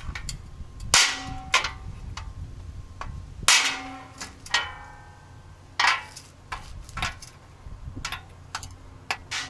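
Hammer blows on a bent metal RV awning arm channel, struck over a socket set inside it to straighten a dent. Several sharp strikes a second or more apart, the heaviest about one, three and a half and six seconds in, each ringing briefly.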